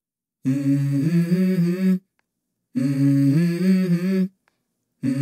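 A voice humming a wordless tune, unaccompanied. It comes in two phrases of about a second and a half with short silences between them, and each phrase steps up in pitch through held notes. A third phrase begins near the end.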